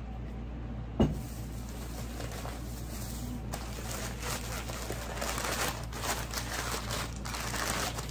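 A sharp knock about a second in, then rustling and crinkling of wrapping as the next item is unpacked, over the steady hum of an air conditioner and fans.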